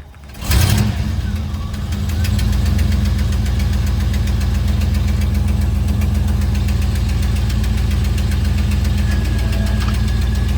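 Pontiac Trans Am V8 idling steadily with a fast tapping from the engine, typical of a worn exhaust manifold gasket. Near the start the sound drops away briefly and comes back with a short loud burst before settling.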